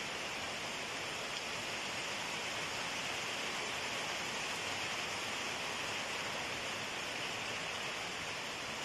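Steady rain falling on dense garden foliage: an even hiss that holds level throughout.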